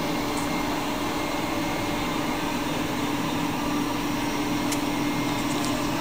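Steady drone of a tractor and a Claas Lexion combine harvester running side by side, heard from inside the tractor cab, with a constant hum through it.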